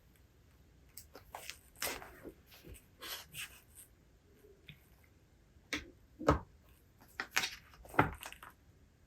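Handling sounds at a desk: scattered light rustles and clicks, with two dull knocks about six and eight seconds in.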